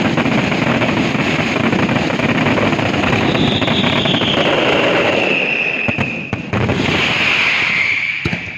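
Fireworks display firing a dense, continuous barrage of bursts and crackle, with a whistle falling in pitch about halfway through and another near the end; the barrage dies away at the very end.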